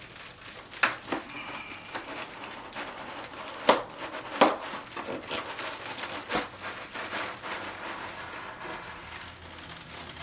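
Handling noise from a PC case: a few sharp knocks and clicks with quieter rustling between them, as the tempered-glass side panel is worked loose.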